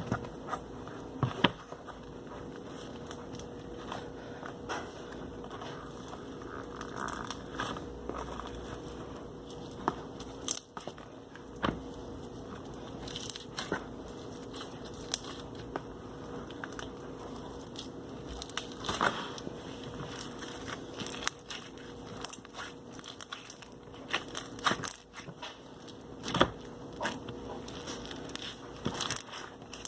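A large clear slime being squeezed, stretched and poked by hand, giving irregular sharp clicks and pops.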